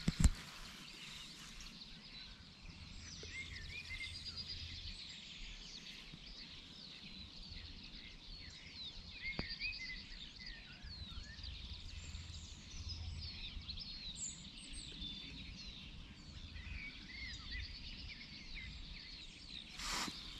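Several songbirds chirping and singing, many short overlapping calls, over a low rumble. A brief click near the start and a short rustle near the end.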